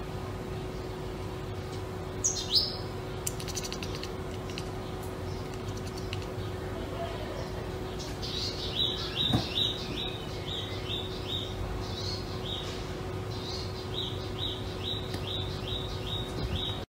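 A small bird chirping: short, high, falling chirps repeated about three a second, starting about halfway through, over a steady low hum.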